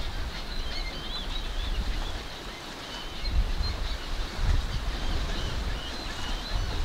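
Wind buffeting the microphone with a low rumble that eases for a moment a couple of seconds in, while small birds give repeated short, high chirps.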